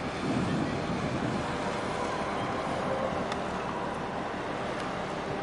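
Steady low rumble with the wash of water and wind, from a large container ship passing close by, a little louder in the first second.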